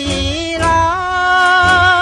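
Backing music of a Taiwanese ballad between sung lines: a melody held with vibrato over a steady low beat.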